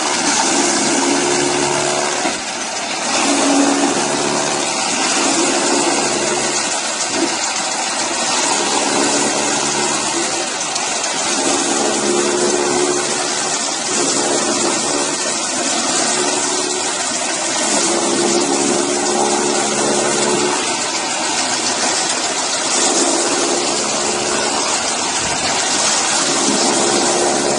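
Agrowindo AGR-CH200B grass chopper, its motor-driven blades chopping elephant grass stalks fed in by hand: a loud, steady rushing noise. A pitched hum swells every couple of seconds as bunches of stalks go through.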